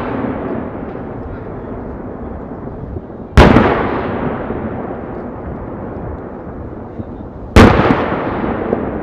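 Aerial firework shells bursting at a distance: two loud booms about four seconds apart, each followed by a long rolling echo that slowly fades, with the tail of an earlier boom dying away at the start.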